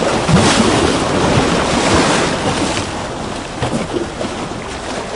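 Recorded ocean-water ambience playing as an AR scene's background sound: a steady rush of water noise that swells in loudness over the first couple of seconds, then eases a little, with small low bubbling blips through it.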